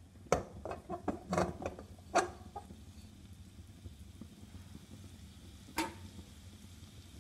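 Cooking utensil knocking and scraping against an aluminium karahi while stir-frying potato and pepper strips: a quick run of clatters in the first couple of seconds and one more sharp knock near the end, over a low steady hum.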